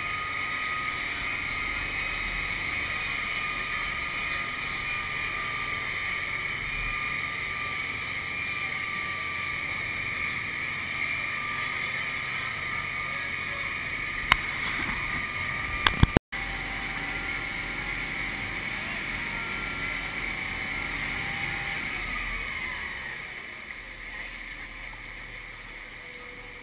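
Amphibious tour truck under way on a river: a steady engine note with a whine, and water rushing along the hull. A few sharp clicks and a brief gap come past the middle. Near the end the engine note falls in pitch and the sound gets quieter.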